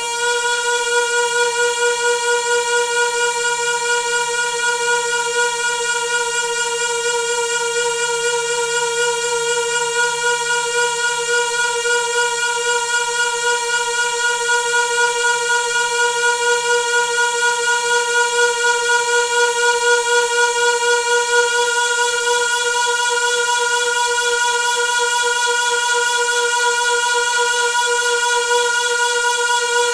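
Noisy water pipe singing: one steady, high-pitched hum with a slight fast wobble, holding without a break.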